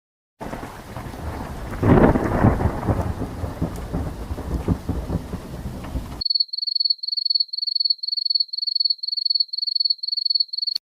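Thunderstorm sound effect: steady rain with a loud rumble of thunder about 2 s in, cutting off suddenly after about 6 s. It is followed by a single high-pitched beep repeating about three times a second, ending with a click.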